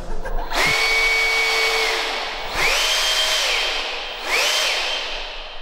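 Electric suction fan of a fan-downforce RC car spooling up three times in short bursts, each a rising whine that holds steady for a second or so and then winds down.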